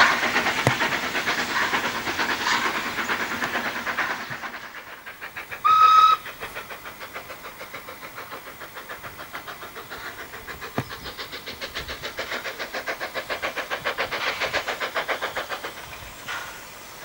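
Steam locomotive exhaust beats from a train pulling away, fading over the first few seconds. Then one short whistle blast, followed by the rapid, even exhaust beats of the Hunslet 0-6-0ST saddle tank "Jacks Green" working toward the listener and growing louder.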